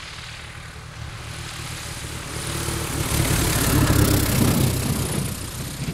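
Mooney M20 single-engine propeller plane passing low by the camera as it comes in to land. The engine and propeller grow louder to a peak about four seconds in, then fade as it goes by.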